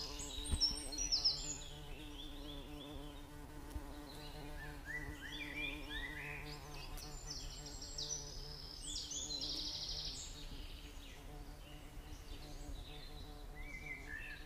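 Outdoor ambience: many short high bird chirps and trills, thickest in the first ten seconds, over a steady low buzz like insects.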